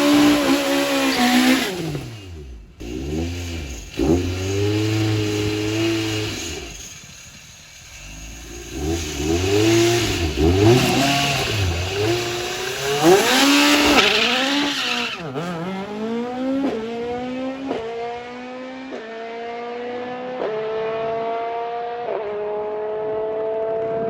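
Ford Escort Mk2 race car's Millington Diamond four-cylinder engine revving hard, rising and falling again and again. About 15 s in, the car pulls away, its pitch climbing in steps through the gears as the sound grows duller and fades with distance.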